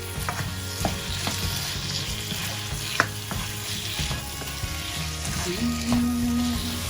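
Beef, onions, spices and chopped tomato sizzling in a hot pan as they are sautéed and stirred, with a few sharp clicks of the spoon against the pan, the loudest about three seconds in.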